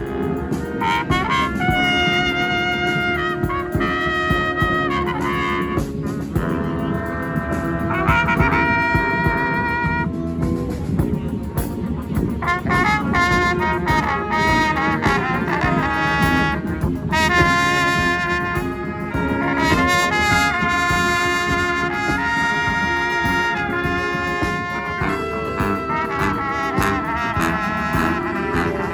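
Street brass band playing live: trumpets and trombones sound loud melody lines and chords over a steady percussion beat.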